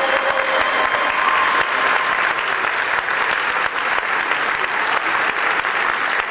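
A crowd applauding steadily, with the last held notes of group singing fading out in the first second or so.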